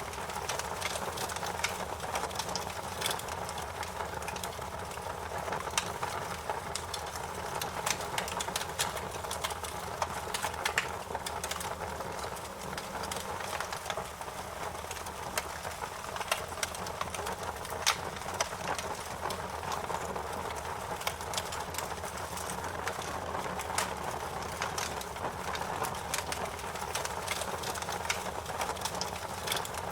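Wood fire crackling in a fireplace: frequent sharp pops and snaps over a steady hiss and rumble of burning.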